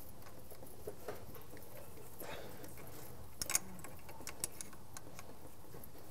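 A few faint, sparse metal clicks and ticks as a pinch bolt on the transmission shift linkage is worked loose, the clearest a short cluster about halfway through, over a steady low background hiss.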